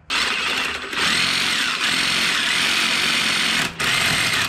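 A power tool cutting through a steel steering tube, running with a steady high whine. It drops out briefly about a second in and again near the end.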